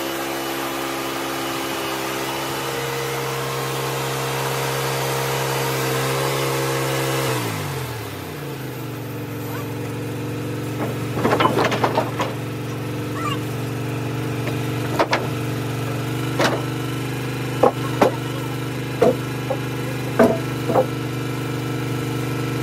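Wood-Mizer LX150 band sawmill's engine running at high revs, then throttling down to idle about seven and a half seconds in. While it idles, sawn timbers are shoved and knocked on the mill bed, a series of sharp wooden clunks.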